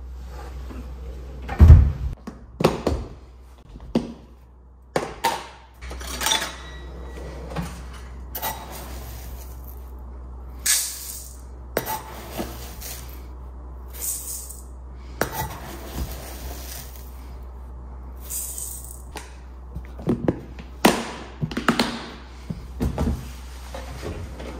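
A heavy thunk as a plastic storage container is set down, then a metal scoop digging into dry rice in the container and pouring it into a stainless steel bowl, one short rattling pour every couple of seconds. Plastic clacks and a kitchen drawer sliding shut come near the end.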